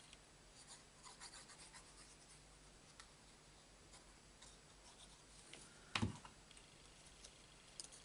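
Faint rustling and light ticking of paper cut-outs being handled and glued with a liquid glue bottle, with one sharp knock about six seconds in.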